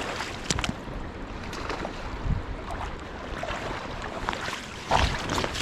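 Steady noise of river water and wind on the microphone, with scattered small clicks and knocks and a louder thump about five seconds in.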